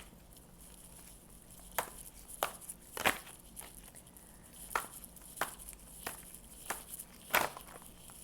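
Tarot cards being handled on a table: a series of sharp light taps and flicks, roughly two a second, in two short runs.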